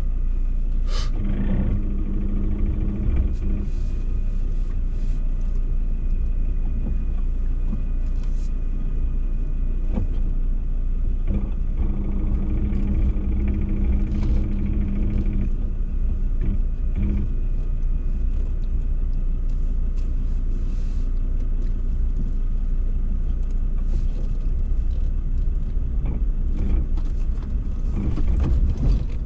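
Cabin noise of a Ford Ranger driving slowly over a rough dirt four-wheel-drive track: a steady low engine and tyre rumble, with scattered knocks and rattles as the vehicle goes over bumps. A steady engine drone rises out of the rumble about a second in and again for a few seconds in the middle.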